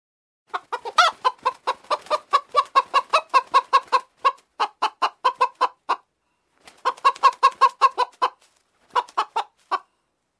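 Chickens clucking in quick, regular series of short clucks, about five a second, broken by two short pauses into three runs.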